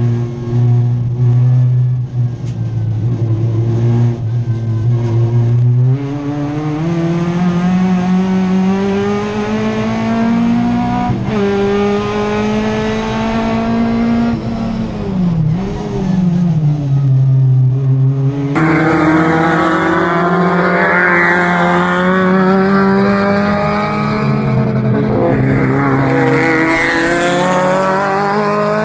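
Race car engine heard from inside the cockpit, holding a steady note, then climbing in pitch under acceleration and dropping sharply as the car slows and climbs again. About two-thirds of the way through, the sound cuts abruptly to race cars running past on the circuit.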